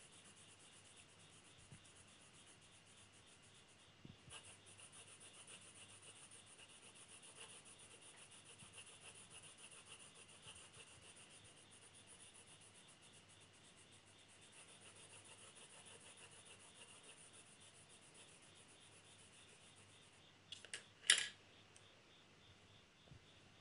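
Pencil lead rubbing on drawing paper in quick, short shading strokes, faint and continuous. Near the end come a few sharp clicks, the loudest sound.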